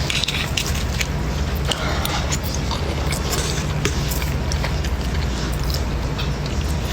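Close-miked chewing, with scattered short wet mouth clicks and smacks, over a steady low hum.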